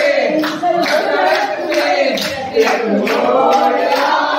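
A group clapping in rhythm, about two claps a second, with voices singing along.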